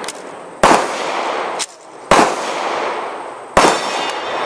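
Gunshots from other shooters on the range: about four single shots spaced one to one and a half seconds apart, each trailing off in a long echo.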